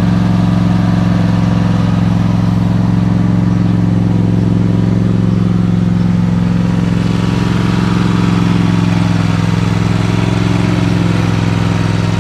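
Vehicle engine idling steadily close by, just after starting, with an even, unchanging hum.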